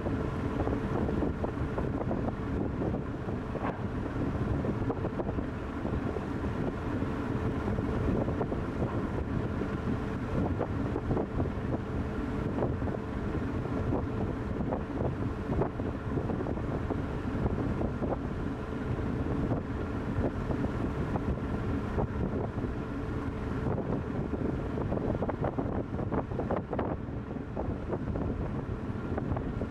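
Wind buffeting the microphone over the steady hum of a coaster ship's engine running under way.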